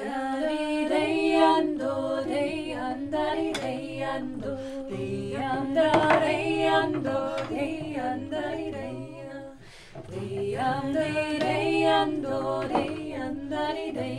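Several voices singing together unaccompanied; the singing drops away briefly a little before ten seconds in and then picks up again.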